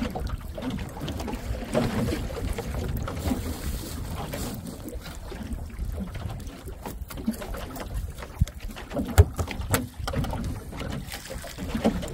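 Wind rumbling on the microphone aboard a small open fishing boat at sea, with scattered sharp knocks and clicks as fish and crabs are handled on the deck; the loudest knock comes about nine seconds in.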